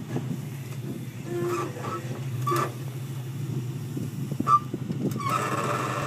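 Rock-crawling off-road vehicle's engine running slow and steady as it creeps down over boulders, with scattered knocks and scrapes of tires and chassis on rock and one sharp knock about four and a half seconds in. The sound grows louder and rougher about five seconds in.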